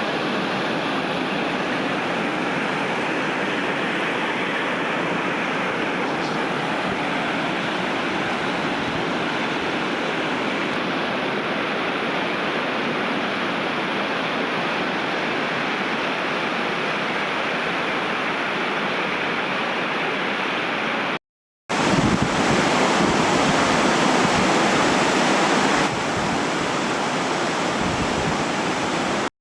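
Steady rushing of water from a mountain stream and spring. The sound drops out briefly about two-thirds of the way through, then comes back louder.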